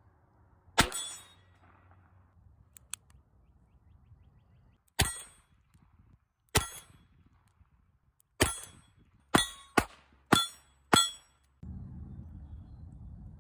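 Eight sharp metallic cracks with a brief ringing tail, irregularly spaced, the last five coming quicker, from a Nagant M1895 revolver. A steady low rumble sets in near the end.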